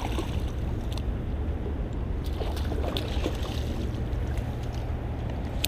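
Steady low rumble of wind on the microphone, with a few sharp clicks and splashes as a hooked salmon thrashes in the shallows at the bank.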